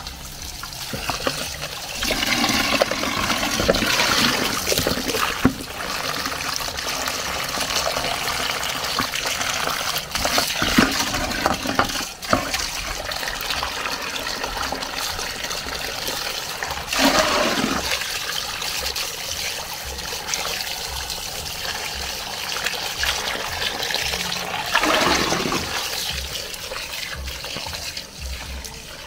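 Water from an outdoor tap splashes into a plastic colander as whole croaker fish are rubbed clean by hand. The water runs steadily, with a few louder splashes and sloshes along the way.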